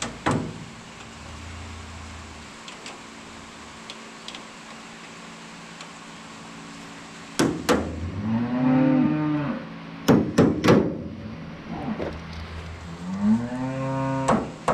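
Hammer blows on the steel of a New Idea corn picker's husking bed: one near the start, two quick ones in the middle, then three more, and one near the end. Between them a cow moos twice, each call about a second and a half long, rising and then falling in pitch.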